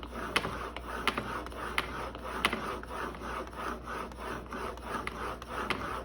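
A Cutthroat S7 steel single-bevel broadhead being stroked on sandpaper over glass: a rhythmic rasping scrape, about three strokes a second, with a sharp tick roughly every 0.7 s.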